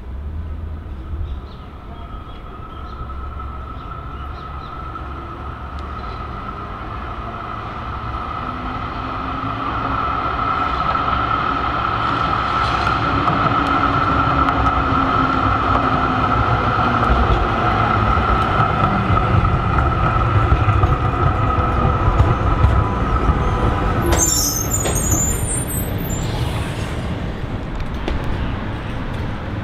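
B2-class tram running along street tracks toward the listener and past: a steady whine over a low rumble of wheels on rail, growing louder toward the middle and easing off after. A brief crackle near the end.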